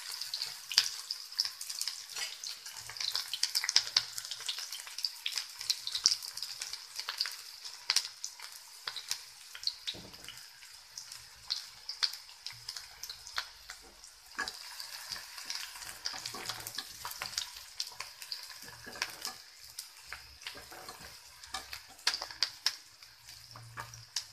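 Chopped onions frying in hot mustard oil with cumin seeds in a kadhai: a steady sizzle with frequent sharp crackles and pops.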